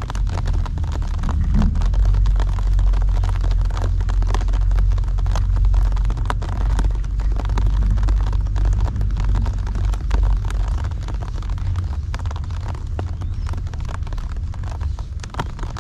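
Heavy typhoon rain, drops striking nearby surfaces in a dense patter of sharp ticks over a steady low rumble.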